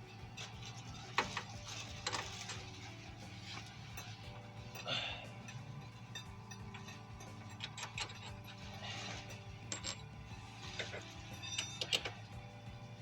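Metal hand tools clicking, clinking and scraping in irregular short strokes during brake disc work on a vehicle's wheel hub, with soft background music.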